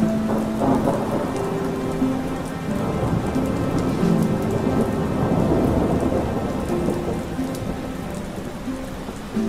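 Relaxation soundtrack of steady falling rain and rumbling thunder, with soft sustained music notes drifting over it. A thunder rumble swells about halfway through.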